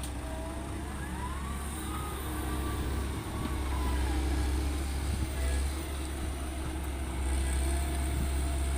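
Heavy diesel engine running steadily with a deep, even rumble.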